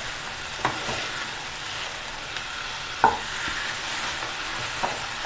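Chicken pieces frying in ghee in a wide pan, sizzling steadily while being stirred, with three short knocks of the spatula against the pan, the loudest about three seconds in. The masala is being fried down dry until it sticks to the pieces.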